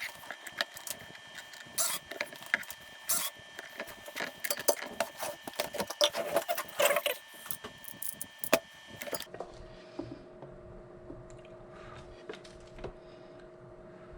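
Irregular clicks and clatter of small tools, wires and parts being handled on a workbench. About nine seconds in, the sound changes abruptly to a quieter steady hum with a few faint taps.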